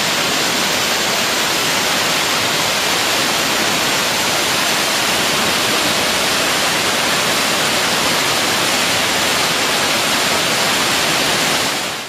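The grotto's waterfall pouring down onto rock, a loud, steady rushing of falling water that fades out near the end.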